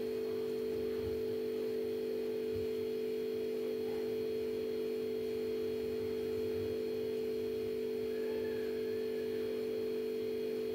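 Steady background hum made of two constant low tones with fainter high ones above, unchanging throughout.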